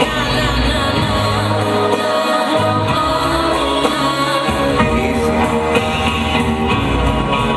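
A song with a singing voice, played over a loudspeaker for the performance.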